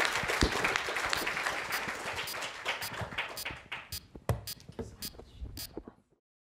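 Audience applauding. The clapping thins out to a few scattered claps and cuts off suddenly about six seconds in.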